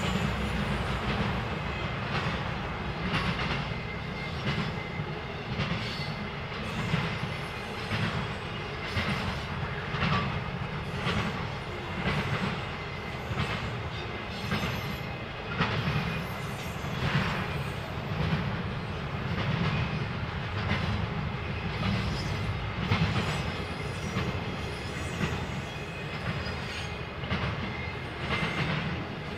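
Freight train cars rolling past, their wheels clacking over rail joints in a steady rhythm about once a second over a continuous low rumble.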